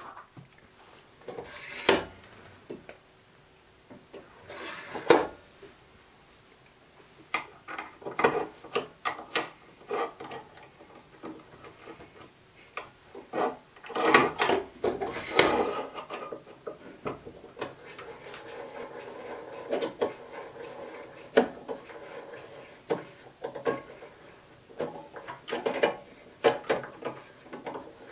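Irregular metal clicks, knocks and scraping as small steel parts and tools are handled and set down on a pillar drill's table and machine vice while holes are tapped 8BA.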